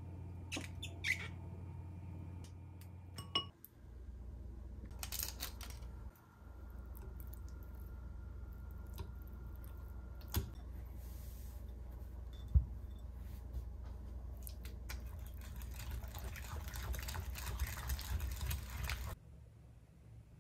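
Silicone spatula scraping thick yogurt from a plastic cup into a glass bowl, with soft squelching and clicks. Then a wire balloon whisk stirs the cream cheese and yogurt, scraping and clinking against the glass, busiest in the last few seconds before it stops suddenly. A low steady hum runs underneath.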